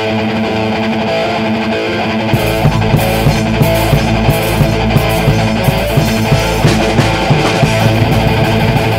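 Instrumental passage of a heavy metal song: distorted electric guitar holding a riff, with the full band, drums and cymbals, coming in about two seconds in and driving a steady beat.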